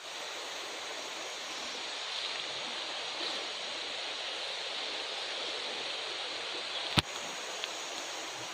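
Steady rush of flowing water, like a stream or small waterfall, with one sharp click about seven seconds in.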